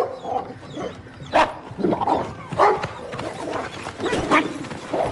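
A dog barking in about four short, sharp barks spread over several seconds, with lower whining between them.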